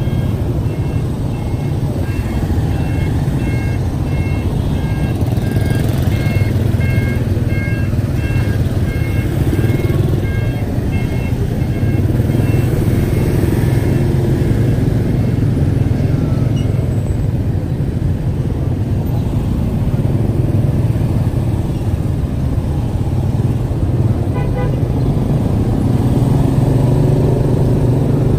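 Steady engine and road rumble of a car moving through city traffic. For the first half there is a repeating electronic beep about twice a second, and about 24 seconds in there is a brief horn toot.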